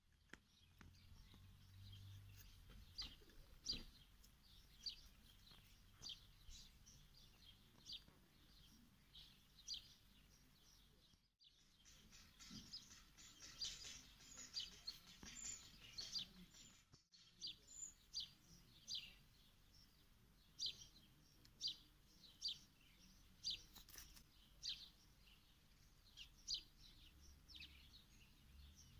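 Faint outdoor ambience with a small bird chirping over and over: short, high chirps about once a second, in a quick cluster midway. The sound drops out briefly twice.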